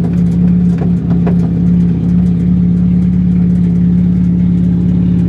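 Car engine running at a steady speed, a constant low drone, with a few light clicks in the first second and a half.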